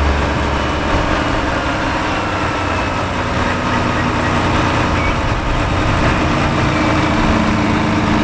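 Diesel engine of a four-axle tipper truck running steadily while its hydraulic ram raises the tipper body.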